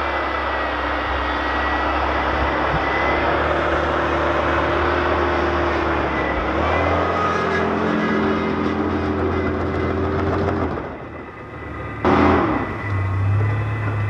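Pickup truck engine running hard under load as the truck tries to climb a steep snowy, muddy driveway and fails to make it. The engine note steps up about halfway through, then falls away near the end, followed by a brief burst of revving.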